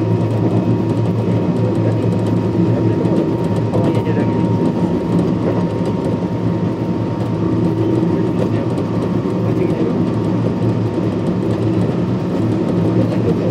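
Kintetsu 1249 series electric train with Hitachi GTO-VVVF inverter control running steadily along the line: an even, loud rumble of wheels and motors with a faint steady high tone.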